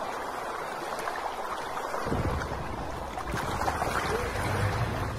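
Marina ambience: a steady wash of wind and lapping water, with the low rumble of a boat engine joining about two seconds in.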